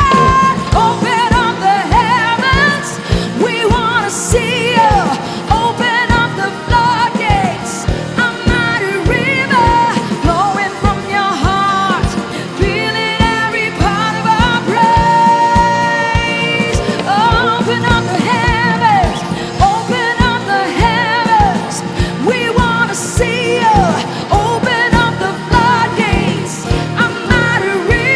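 Contemporary worship band playing with a steady drum beat, a voice singing over it.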